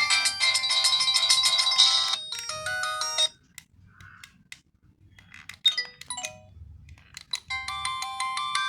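Samsung SCH-N480 mobile phone playing its built-in ringtones and alert tones: a busy electronic melody stops about two seconds in, a few short beeping alert tones follow with gaps between them, and another melody starts near the end.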